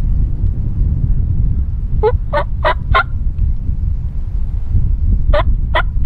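Wild turkey gobbler gobbling twice: a quick rattling gobble about two seconds in and a shorter one near the end. A steady low wind rumble runs underneath.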